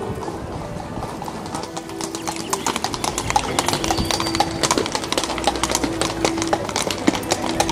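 Horse's hooves clip-clopping on cobblestone paving as a horse-drawn carriage approaches, the hoof strikes growing louder and more frequent from about two seconds in.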